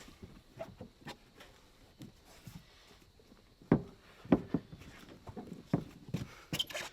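A series of irregular knocks and thumps, a few faint ones at first and then louder and closer together from about halfway through.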